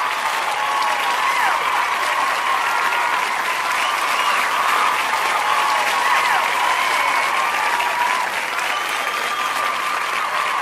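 Large audience applauding steadily, with voices calling and cheering through the clapping.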